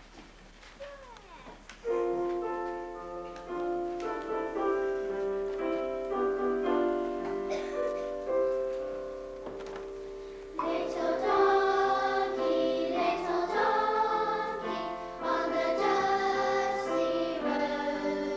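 A group of young children singing a song together, starting about two seconds in and growing louder about ten seconds in.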